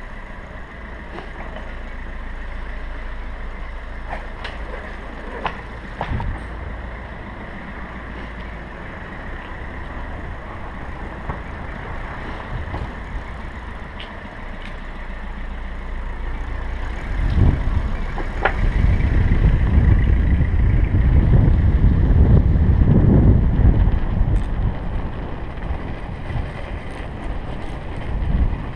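Bicycle rolling over cobblestones, heard through a GoPro mounted on the bike: a steady low rumble with scattered rattles and knocks from the rough stones. A little past halfway the low rumble becomes much louder for several seconds, wind buffeting the camera microphone as the bike picks up speed.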